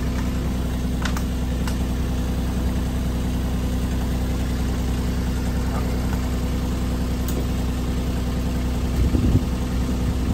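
Mini excavator's diesel engine idling steadily, heard from the operator's cab, with a brief louder low bump about nine seconds in.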